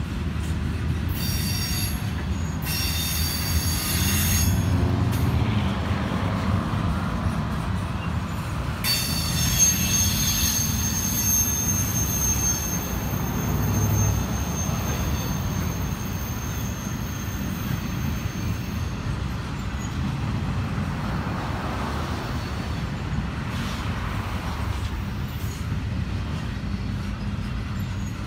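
Double-stack intermodal freight cars rolling past with a steady rumble of wheels on rail. A high-pitched metallic wheel squeal comes in twice briefly near the start, then holds from about nine seconds in to about nineteen seconds in.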